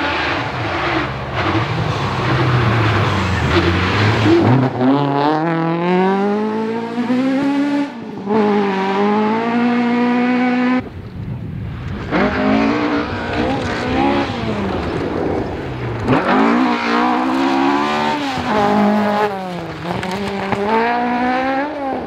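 Ford Escort Mk2 rally car engine at full throttle, its note rising steadily with a drop at a gear change about eight seconds in. It cuts off abruptly just before halfway, and a second Escort follows, its revs swinging up and down again and again through a gravel corner.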